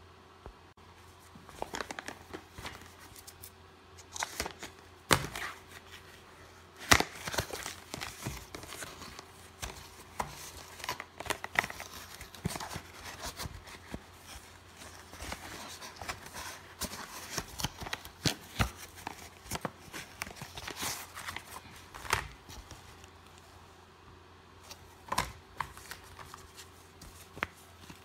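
A small cardboard retail box being opened and handled: scattered clicks, scrapes and rustles of cardboard and paper, with a few sharper snaps.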